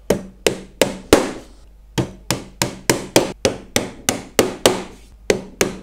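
Small hammer tapping brass escutcheon pins through a metal runner into the wooden wall of a beehive brood box. It is a series of sharp taps: four, a short pause about a second in, then a quicker run of about three a second.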